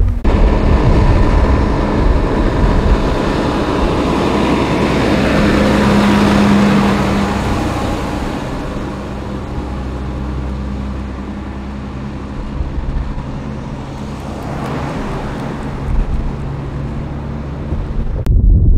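Fire engine's diesel engine running as the truck drives past, growing louder to a peak about six seconds in and then fading as it moves away. The sound cuts off abruptly near the end.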